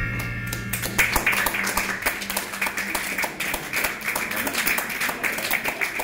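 The last chord of a piano-accompanied song dies away, then a small audience starts applauding about a second in and keeps clapping.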